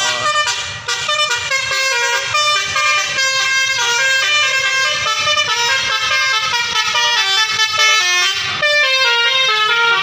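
Multi-tone 'basuri' telolet bus horn playing a fast tune, one pitched note after another, each changing several times a second with no break.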